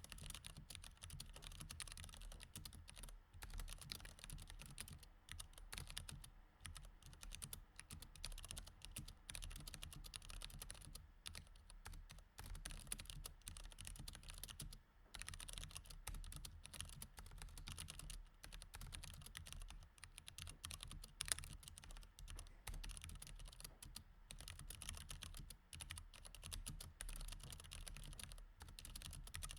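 Typing on a mechanical keyboard with Cherry MX Red switches: a quick, continuous stream of soft key clicks, broken by brief pauses now and then.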